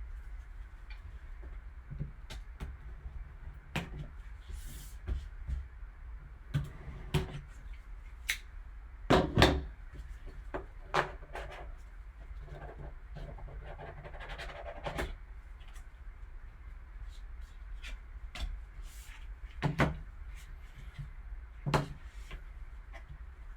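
Hands opening and handling a sealed football trading card box and its contents: scattered clicks, taps and short rustles of cardboard and wrapping, loudest about nine seconds in, over a steady low hum.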